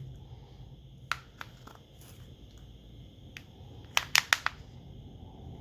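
Sharp little clicks and snaps of a smartphone back cover being pried off, its clips letting go: a few single clicks about a second in, then a quick run of four or five louder snaps about four seconds in.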